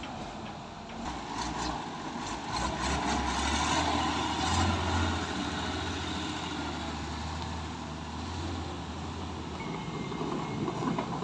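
Kato crane truck's diesel engine running with a steady low drone as the truck pulls away on a muddy track, swelling a little about four to five seconds in. The drone stops near the end.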